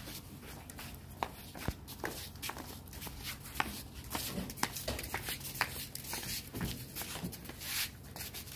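Footsteps and shuffling of people carrying a heavy speaker cabinet by hand, with scattered scuffs and knocks from its checker-plate casing being handled, over a low steady hum.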